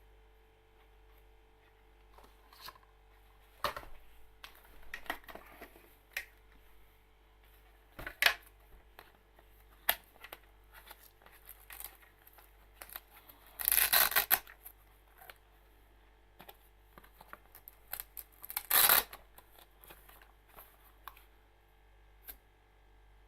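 Handling noise from headphones and their packaging: scattered clicks, taps and rubs, with two louder rustling bursts, one a little past halfway and another about five seconds later.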